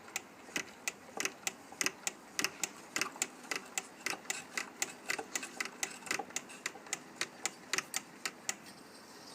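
Antique Wilson transfer-shuttle sewing machine being run, its mechanism clicking evenly about three times a second, stopping near the end.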